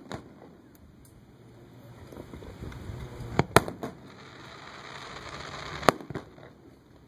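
Aerial fireworks shells bursting with sharp bangs: a small one at the start, a close pair about three and a half seconds in and another near six seconds. A hiss builds before the last bang.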